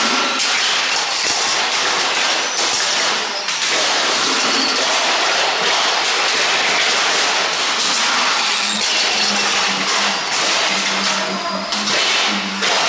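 Radio-controlled stock cars racing round an indoor oval: a continuous, loud whir of small motors and tyres on the track. Near the end a low hum cuts in and out in several short stretches.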